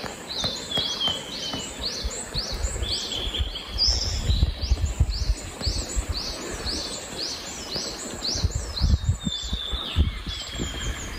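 A chorus of cicadas: a high call repeated fast, about three times a second, with several singers overlapping. A low, uneven rumble sits underneath.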